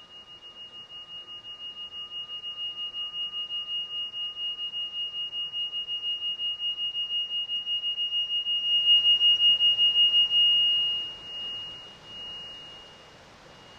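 Singing bowl being rubbed around its rim: a single high ringing tone with a steady wobble of about three pulses a second, swelling louder for about nine seconds. It is cut short about ten seconds in, with a couple of faint touches as it stops.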